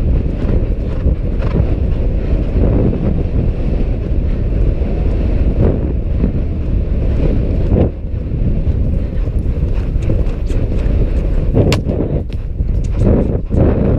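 Loud wind buffeting the microphone of a rider's camera at a gallop, a heavy rumble that swells and dips unevenly. In the last few seconds a scatter of sharp clicks and taps rides over it.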